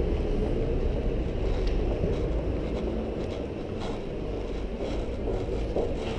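Steady low rumble of street traffic and wind on a body-worn camera's microphone, easing a little midway, with a few faint clicks and knocks.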